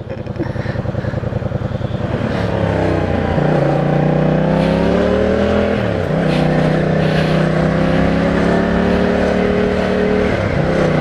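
Yamaha MT-07's parallel-twin engine pulling away from low revs and accelerating up through the gears, its pitch rising, then dropping and climbing again at each upshift, about 3.5, 6 and 10.5 seconds in.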